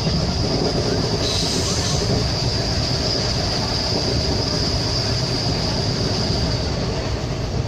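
WDM3A diesel locomotive's ALCO 251 engine running with a steady high turbocharger whistle over a low rumble. A brief, brighter hiss comes in about a second in, and the whistle fades near the end.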